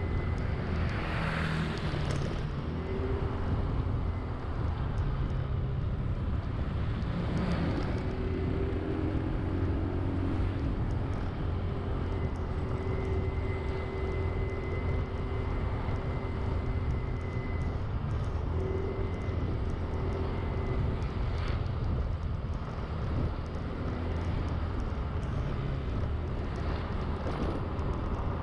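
Honda Zoomer-X scooter's small single-cylinder engine running while riding, a steady low drone whose pitch shifts a little now and then. A few brief swells of noise pass through it.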